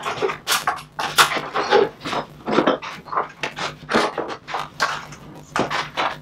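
Plywood parts and tools being picked up, set down and slid about on a wooden workbench: irregular short knocks and scrapes, two or three a second, over a low steady hum.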